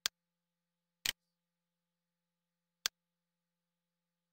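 Three single computer mouse clicks, spaced irregularly, with near silence between them.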